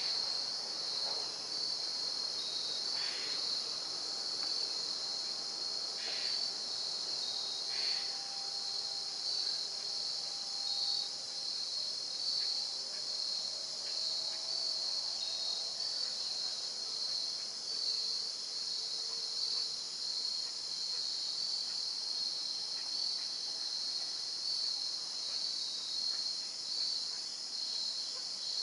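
A steady, high-pitched chorus of insects such as crickets chirring, pulsing slightly.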